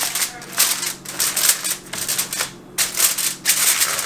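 Aluminum foil crinkling in irregular bursts as it is pressed and crimped down around the rim of a foil baking pan, with a brief pause a little past halfway.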